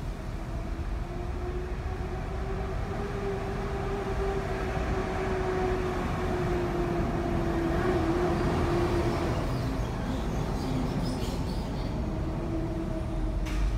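Steady drone of idling vehicle engines and city traffic, heard while stopped at a red light, with one short click near the end.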